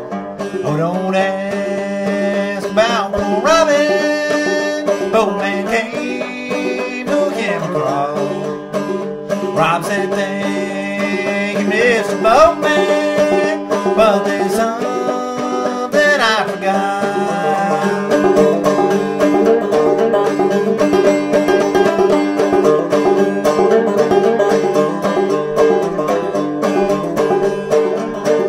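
Background music: a banjo-led bluegrass-style tune with fast plucked picking, with sliding melody notes over it in the first half.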